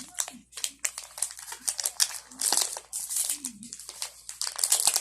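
Crinkling plastic wrapper of a snack bar being handled and opened: a dense, irregular run of crackles.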